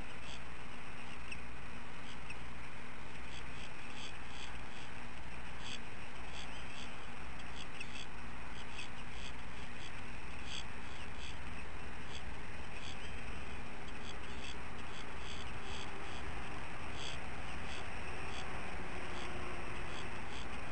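Outdoor ambience from a nest camera's microphone: a steady hiss with a low hum beneath it, and many short, high chirps or ticks scattered irregularly throughout.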